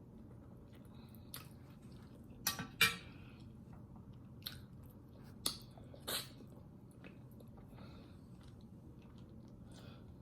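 Close-up mouth sounds of someone eating oxtail: soft chewing with a few sharp, wet smacks and clicks spaced irregularly, the loudest a pair a little under three seconds in and another pair around six seconds.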